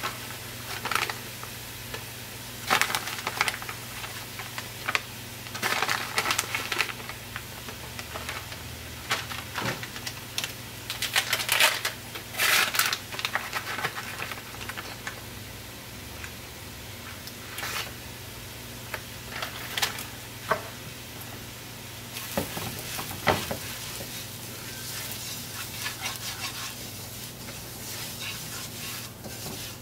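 Onion and curry powder frying in an aluminium pot, with a spoon stirring and scraping against the pot in irregular bursts. About two-thirds of the way in it settles into a steadier sizzle as the curry is stirred and cooked.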